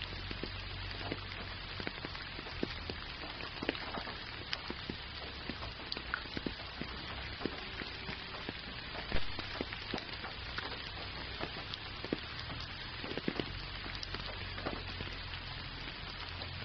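Gentle rain falling steadily, a hiss of rain with many single drops ticking close by and one slightly louder drop about nine seconds in.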